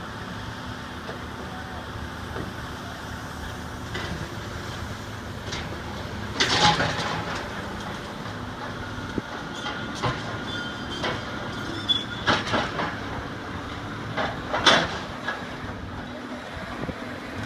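Hydraulic excavators working: a steady diesel engine drone with occasional sharp metal clanks and scrapes, the loudest about six and a half seconds in and again near fifteen seconds.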